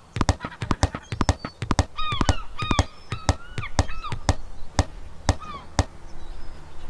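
Rapid, irregular clicks and taps with short honking calls, like a goose's, that bend in pitch over them; the calls thin out after about three seconds and the clicks stop near the end, leaving a faint low hum.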